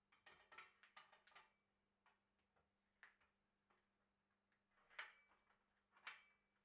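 Faint metallic clicks and clinks of headset cups and a headset press being handled and seated on a steel bicycle head tube. A quick flurry of small clicks comes first, then single clicks, the sharpest two about five and six seconds in.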